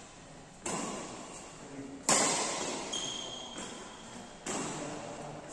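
Badminton rally: rackets strike the shuttlecock three times, one to two and a half seconds apart, the second hit the loudest. Each hit rings on in the echoing metal-walled hall, and there is a brief high squeak midway.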